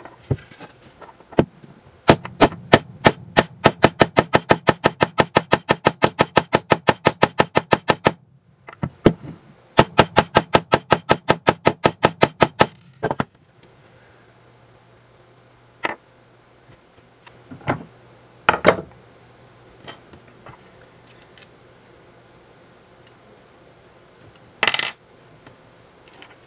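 A flangeless metal pulley being forced into a tight-fitting 3D-printed Z-endstop housing by brute force: rapid pounding with a wooden board, about six or seven blows a second, in two runs with a short pause between. A few separate knocks follow as the part is handled on the wooden bench.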